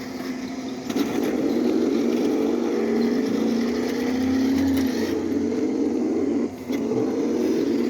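Remote-control toy Hummer H2 car driving, a steady electric drone that wavers slightly in pitch, softer for the first second and dropping out briefly about six and a half seconds in.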